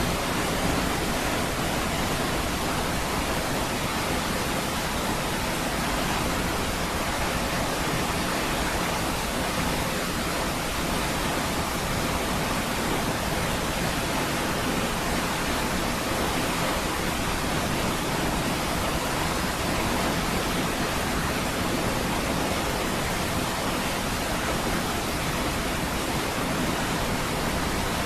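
Niagara Falls: heavy water falling in one steady, even rush, spread from deep to hiss-like highs, with no breaks or changes.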